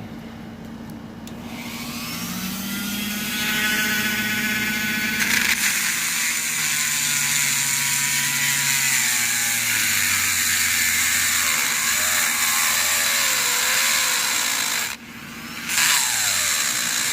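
Electric drill boring into the pins of a Kaba padlock core: the motor spins up, then runs with a steady high whine and grinding as the bit works at the pins, stopping for a moment near the end and starting again.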